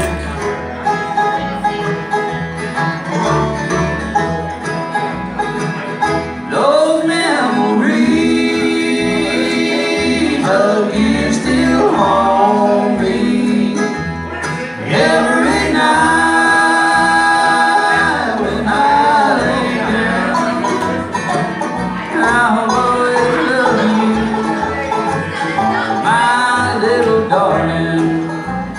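A live bluegrass band playing on acoustic guitar, upright bass and plucked strings, with singing in long held lines.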